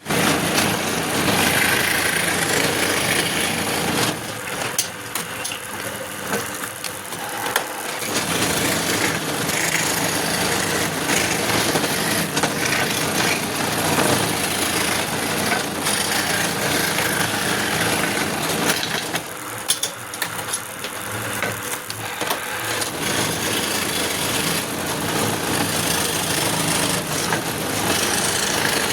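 Power tool running and cutting into wood, loud and continuous, easing off twice for a few seconds.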